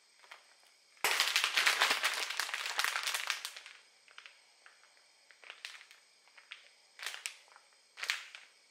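Plastic food packaging crinkling as it is handled: a dense spell of crackling about a second in that lasts two to three seconds, then a few short crinkles.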